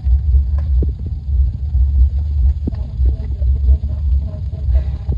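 Low, uneven rumble with a few faint clicks.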